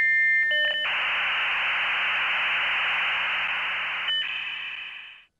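Steady electronic beep tones, then about three seconds of loud hissing static, then tones again, the whole fading out near the end.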